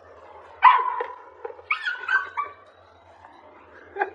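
Pug barking once, then giving a couple of shorter, higher yips that bend in pitch about a second later.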